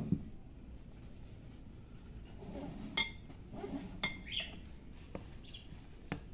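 Wooden spoon stirring a wet spice-and-oil mixture in a glazed ceramic dish: a sharp knock at the very start, then soft scraping and several short ringing clinks of spoon and crockery.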